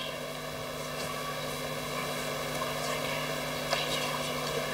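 Steady electrical hum with a few fixed pitches, with a couple of faint knocks.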